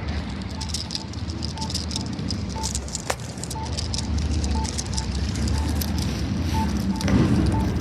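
Accessible pedestrian signal push-button sounding its locator tone: short high beeps about once a second, the signal that marks where the button is between walk phases. Low street traffic rumble underneath, growing louder near the end.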